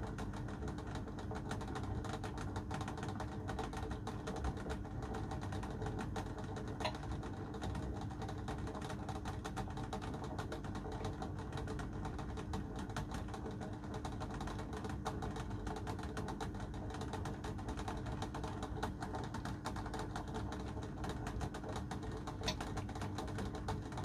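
Water at a rolling boil in a stainless steel pot: a steady, dense bubbling crackle, with a steady low hum underneath.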